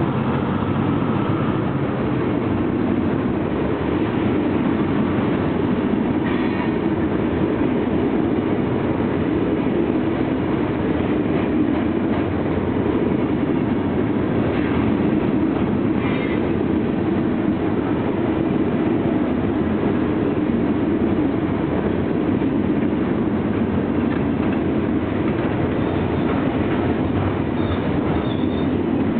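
A loaded freight train of stone cars rolling past at steady speed, its steel wheels running continuously on the rails.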